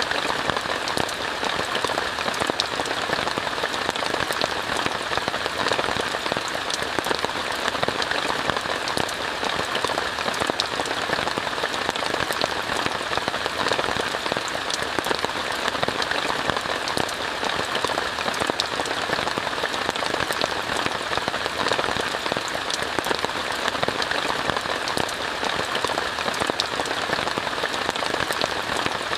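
Steady, dense rain falling on a tent, many small drops pattering without a break.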